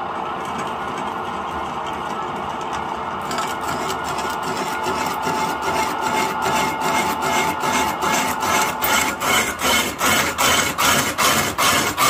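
Wood lathe running with a steady motor hum. From about three seconds in, a cutter bites into the spinning log, making a rasping scrape that pulses about three times a second and grows louder.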